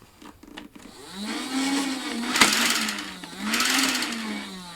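Battery-powered toy minigun running its motor, a whirring hum that rises and falls in pitch twice, with a rattling hiss over it, starting about a second in.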